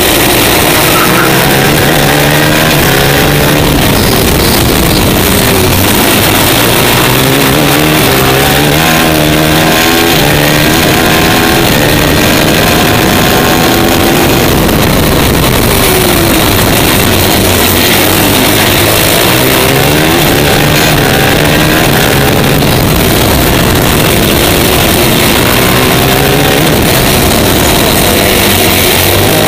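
A TM 450 four-stroke superkart engine running hard at racing speed, loud, its revs repeatedly rising and falling, over a heavy rush of wind and road noise.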